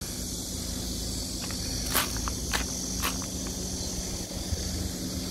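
A few footsteps crunching on gravel, clustered around two to three seconds in, over a steady high drone of insects.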